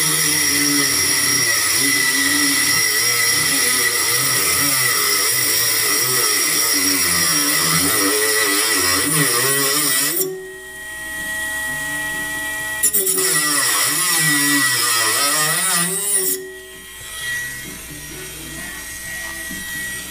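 Handheld rotary tool cutting into sheet metal, its pitch wavering under load. About ten seconds in it eases off to a quieter steady whine, then bites in again for a few seconds and eases off once more near the end.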